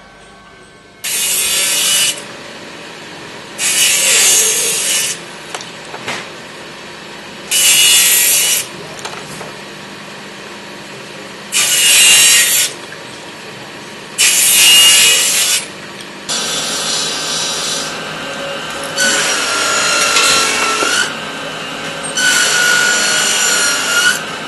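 Small bench circular saw cutting narrow white knife-handle pieces: five cuts of about a second each, spaced a few seconds apart, with the saw running between them. From about two-thirds of the way in, a larger factory machine runs steadily with a high whine, louder twice for a couple of seconds.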